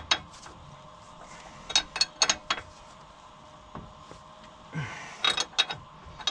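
Metal clicking of a spanner being worked on a track rod end nut, with an Allen key holding the ball-joint stud so it can't turn as the nut is done up. The clicks come in short quick runs of a few each, about two seconds in and again about five seconds in.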